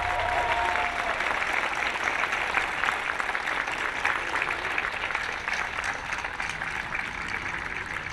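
The music's last held chord dies away about a second in, and an audience applauds: dense, steady clapping from many hands.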